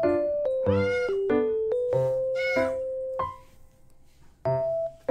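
Domestic cat meowing twice, about a second in and again past two seconds, over background piano music that pauses briefly near the end.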